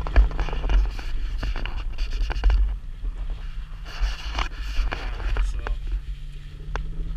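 Vehicle cabin noise while driving slowly over a rough dirt road: a steady engine hum under a low rumble, with frequent knocks and rattles as the vehicle jolts over rocks and ruts.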